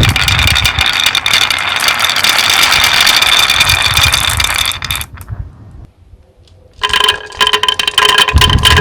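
Dense mechanical rattling and clicking that drops away about five seconds in, then starts again near the end with a steady whirring pitch under it.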